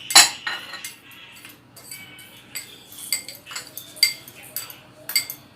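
Metal spoon clinking and tapping against steel bowls and spice containers, a quick irregular run of light clinks, some ringing briefly, the loudest just after the start.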